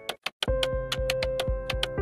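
Electronic background music: a short gap of sharp ticks, then from about half a second in a steady drum-machine beat under a held synth note, with crisp ticks about six a second.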